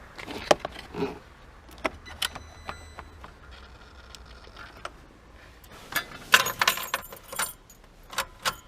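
Car keys jangling on their ring with scattered sharp metallic clicks, a dense flurry of them about six seconds in, as the key is worked in a Lada Granta's ignition lock that the owner suspects has oxidised.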